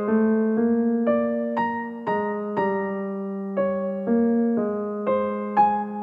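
Background piano music: gentle, unhurried notes struck about twice a second and fading, over a held low note.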